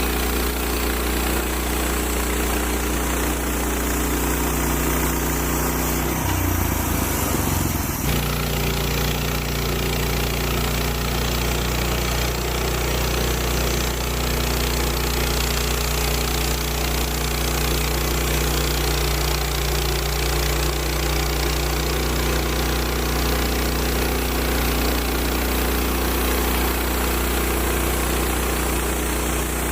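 Woodland Mills HM130 bandsaw mill's gas engine running steadily as the mill saws through a red oak log. About six seconds in, the engine note wavers for a couple of seconds, then settles back to a steady drone.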